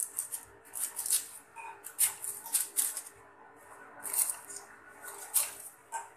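Knife tip punching holes in butter paper laid over a perforated plastic steamer plate: an irregular series of crisp paper crackles and pops, about a dozen.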